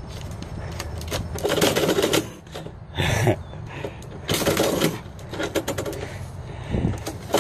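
Paper envelopes scraping through a metal door mail slot and being shoved back out by a cat inside, the slot's flap clattering, in several short bursts.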